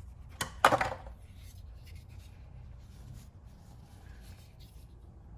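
Crackling and rustling of the multi-tool's packaging being handled and opened: two sharp snaps under a second in, then faint scattered rustling and scraping.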